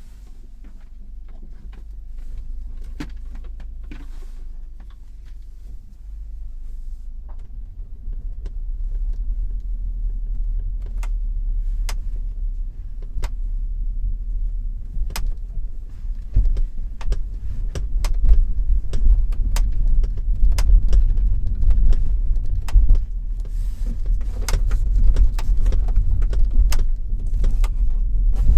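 Sharp, irregular knocks and clicks from the roof panel of a 2020 Hyundai Tucson, heard inside the cabin while driving over steady low road rumble. The knocks come more often after the halfway point, and the rumble grows louder from about eight seconds in.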